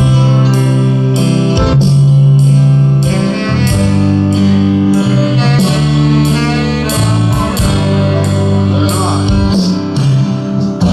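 A live praise band playing an instrumental passage: held chords over a bass line, with guitar, and drums keeping a steady beat.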